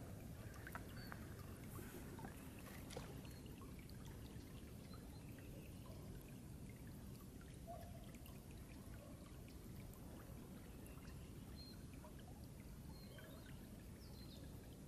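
Faint lapping of small river ripples on a pebbly shore: a low, steady wash with a few soft ticks.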